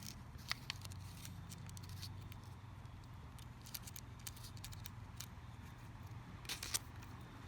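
Faint scattered clicks and taps of a replacement iPhone home button and small parts being handled and fitted into the phone, with a short cluster of clicks near the end, over a low steady hum.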